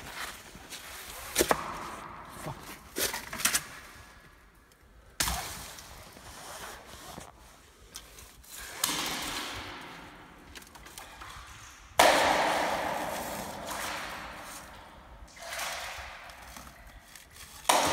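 A neodymium magnet on a rope knocking against the inside of a well shaft. There are a few sharp knocks in the first few seconds, a loud one about twelve seconds in and another near the end, each followed by a rushing sound that fades over a few seconds.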